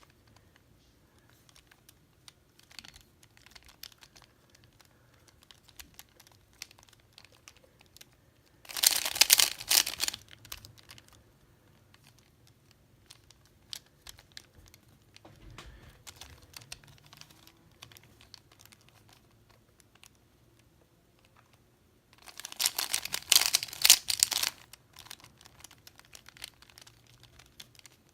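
Plastic 3x3 Rubik's Cube being turned by hand: two quick flurries of rapid clicking turns, each about two seconds long, as an algorithm is run off, with scattered single clicks of slower turns between them.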